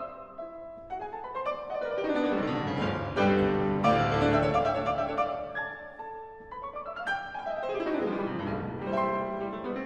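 Background piano music, with quick runs of notes sweeping up and down.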